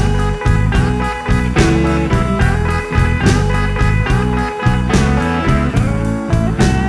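Swamp blues band playing an instrumental passage: slide guitar gliding between notes over bass and a steady drum beat.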